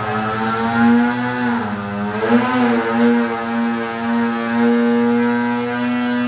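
Snowmobile two-stroke twin with a Bikeman 900 big-bore kit running hard on a dyno during a back-to-back hot run. The pitch is steady and high, dips briefly about two seconds in, then holds and creeps slowly up.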